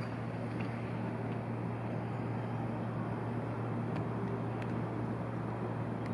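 Steady low mechanical hum with an even background rush and a few faint ticks.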